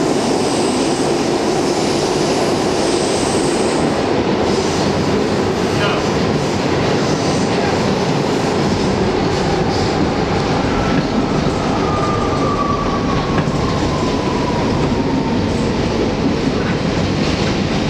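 An R62A subway car of the New York 1 train running at speed in express service, heard from inside the car: the steady rumble of wheels on rails with a few rail-joint clicks. From about eleven to fifteen seconds in, a thin whine falls slowly in pitch.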